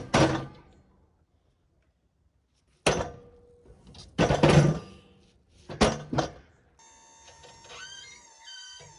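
Heavy wooden cants or flitches being handled and dropped onto the sawmill, giving a series of loud thuds and knocks: a pair at the start, then single knocks about three, four and a half and six seconds in. Near the end a faint steady mechanical hum begins.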